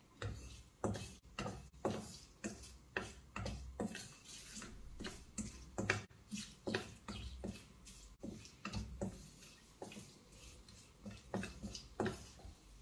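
Wooden spatula stirring in a stainless steel pan, knocking and scraping against the metal in irregular clicks, about one or two a second.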